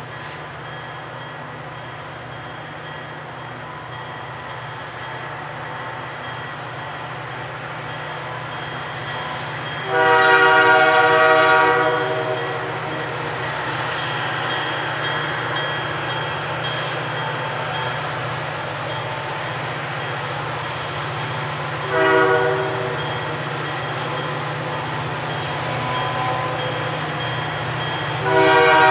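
Approaching freight train's EMD diesel locomotives, their low engine drone growing steadily louder. The locomotive air horn sounds a chord in three blasts: a long one about a third of the way in, a short one about three-quarters in, and another long one starting near the end.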